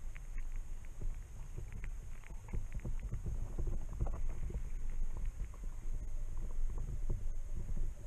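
Underwater sound picked up through a submerged camera's housing: a muffled, continuous low rumble with many small irregular clicks and taps, over a faint steady high whine.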